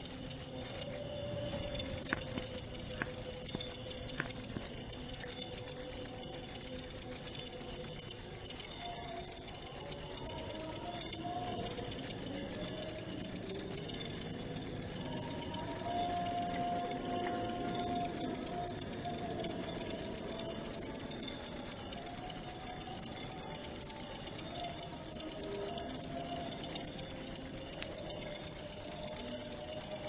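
Cricket chirping in a loud, fast, continuous high-pitched trill that breaks off briefly twice.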